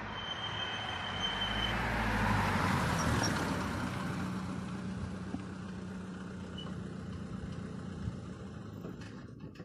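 Mercedes-Benz W123 200D with an OM601 four-cylinder diesel, driving past and away at steady speed. Its engine and tyre noise swell to their loudest about two to three seconds in, then fade slowly as the car draws off.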